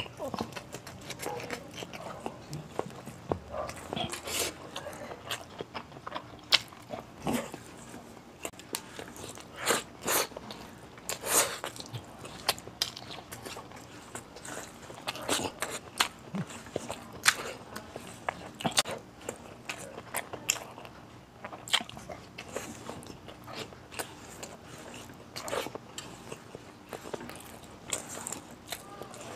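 Close-up mouth sounds of a person eating rice and beef kaldereta by hand: wet chewing and sharp lip smacks, coming irregularly.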